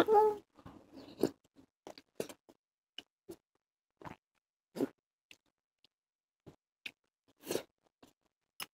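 Close-miked eating sounds: scattered short, quiet crunches and clicks of someone chewing food, with chopsticks tapping against ceramic bowls.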